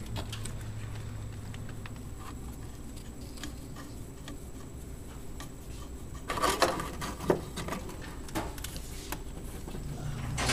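Light metallic clicks and taps of hydraulic hose fittings and braided stainless lines being handled during a hose installation, with a brief flurry of louder clinks and rattles about six seconds in.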